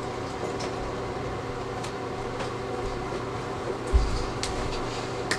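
Steady room hum, like a fan or air conditioner, with faint ticks and rustles of someone moving about. A low thump about four seconds in as she comes right up close.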